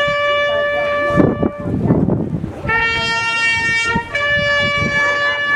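Long held horn notes at two or three different pitches, each lasting one to two seconds, with a rough noisy stretch between them.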